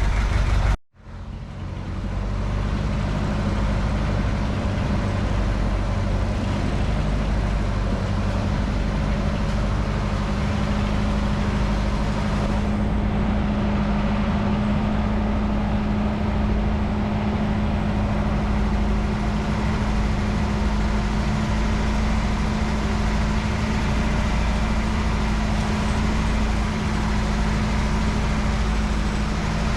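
A boat's engine running steadily under way, with a constant low hum. The sound cuts out for a moment about a second in, then carries on unchanged.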